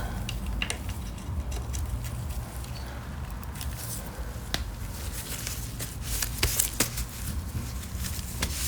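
Scattered light clicks and taps of small metal parts and hand tools being handled, with a few louder knocks around two-thirds of the way through, over a steady low rumble.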